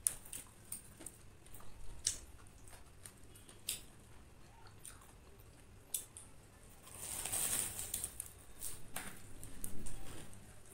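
Close-up eating sounds: crisp lettuce leaves handled, then a bite into a lettuce-wrapped piece of deep-fried chicken with crunching and chewing. Scattered sharp crunches, with a denser run of crunching about seven seconds in.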